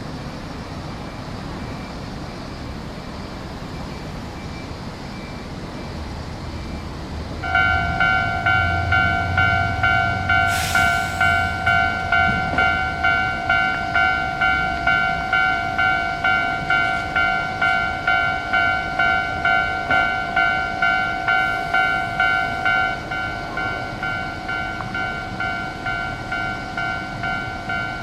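Japanese level-crossing warning bell starting about seven seconds in: an electronic ding repeating about twice a second, a little quieter near the end. Steady road noise before it starts.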